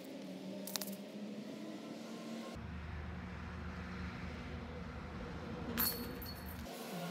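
Outdoor background with a steady low hum, a sharp click about a second in, and a brief metallic jingle near the end.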